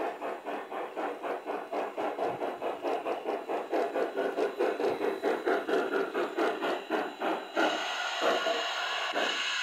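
LGB G-scale Uintah #50 model steam locomotive chuffing in a quick, even rhythm as it draws near, changing to a steadier hiss about three-quarters of the way in as it passes close by.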